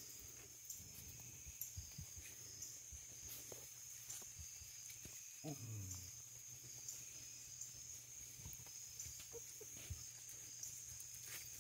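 Basset hound puppy giving one short, low grunt about halfway through as it sniffs around, with a faint steady high-pitched hiss underneath.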